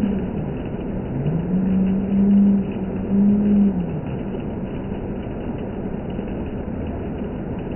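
Hail falling, a steady noisy rush throughout. A vehicle engine hum rises in pitch about a second in, holds, and falls away just before the four-second mark.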